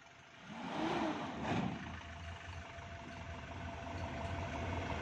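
Diesel engine of a Mitsubishi Fuso 4x4 light dump truck, revved up and back down about a second in, then running steadily under load with a thin whine as the truck crawls down a plank ramp, gradually getting louder.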